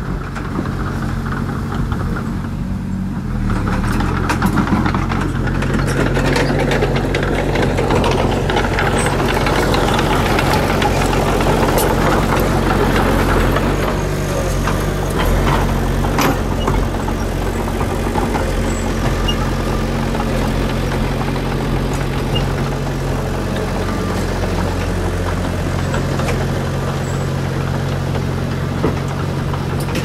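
Small Komatsu crawler bulldozer's diesel engine running steadily as the dozer works, its note shifting a few times. From a few seconds in, the engine is joined by a rustling, scraping haze as the blade pushes through brush and soil, with occasional clicks and knocks.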